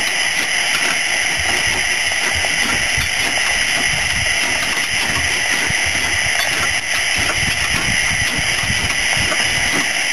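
Steady, loud hiss of steam from a 7¼-inch gauge steam locomotive while its fire is dropped into the ash pit, with irregular low knocking underneath.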